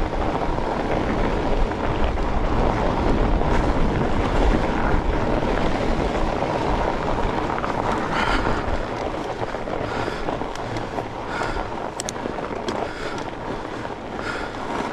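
Fat bike riding on a frozen trail: wind buffeting the helmet or bar microphone over the rumble of the tyres, with scattered clicks and rattles in the second half.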